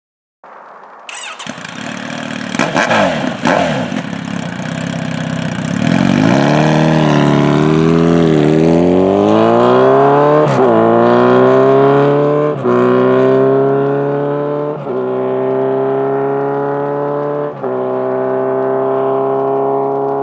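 Kawasaki Z900RS inline-four on a Holeshot/Lextek 4-2-1 header with the loud 10-inch Bad Boy comp core muffler. It runs unevenly with a few sharp clatters, then about six seconds in pulls away hard, revving up through the gears. There are four upshifts, each a short dip in sound followed by a drop in pitch and another rise.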